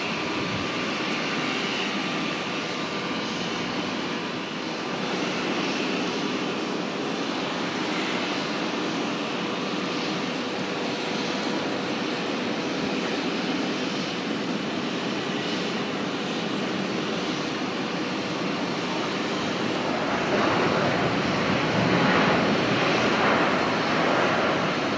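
Jet airliner engines running at a distance: a steady noise with a faint whine held under it, growing louder about twenty seconds in.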